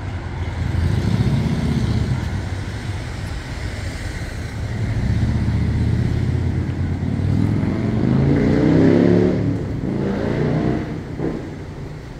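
Street traffic with a motor vehicle's engine passing close by. About two-thirds of the way in the engine revs up, its pitch rising for a couple of seconds, then drops away near the end.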